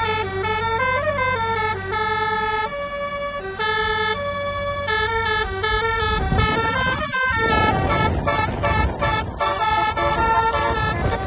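Indonesian bus "telolet" multi-tone horn playing a melody of short and held notes that step up and down in pitch. A loud rushing noise joins under the horn about six seconds in.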